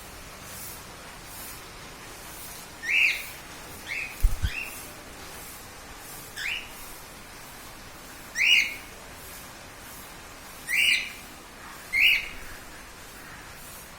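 A bird giving short, rising chirps, about seven single calls spaced a second or two apart, with a brief low thump about four seconds in.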